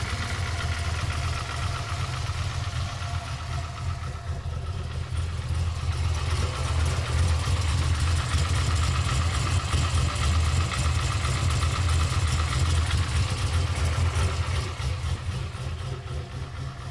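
Chevrolet Camaro engine idling steadily with a fast, regular knocking tap over the engine hum, which the owner suspects is piston slap.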